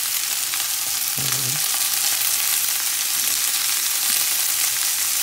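Sliced bell peppers, cabbage and onion frying in a stainless steel pan: a steady, high sizzling hiss.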